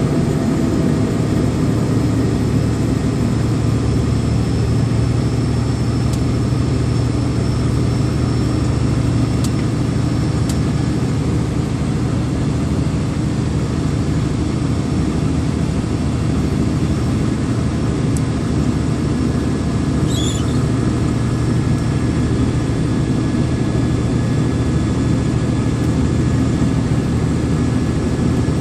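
Vehicle engine running steadily under load with road noise, on an uphill mountain drive: an even, unbroken low drone.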